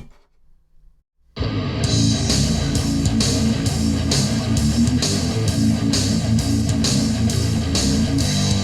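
Guitar-driven rock music with drums. It starts abruptly after about a second of near silence at the start, then plays on at a steady level with regular cymbal strokes.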